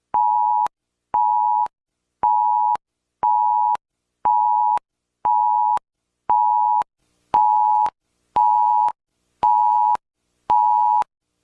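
Emergency alert attention tone: a two-note electronic beep just under 1 kHz, pulsing steadily about once a second, eleven times. The last few beeps carry a little added hiss.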